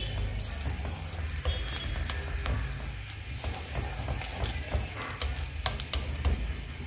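A green paste frying and sizzling in oil in an aluminium kadai, with scattered sharp crackles and pops, while a wooden spatula stirs it around the pan. A low steady hum runs underneath.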